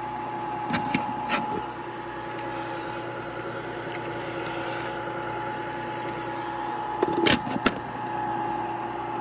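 A small electric motor running steadily: an even hum with a high whine, and a few sharp clicks and knocks about a second in and again near the end.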